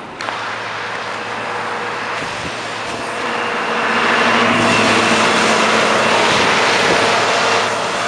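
Steady traffic noise, then from about three seconds in the louder, steady drone of a Case 621B wheel loader's diesel engine running close by.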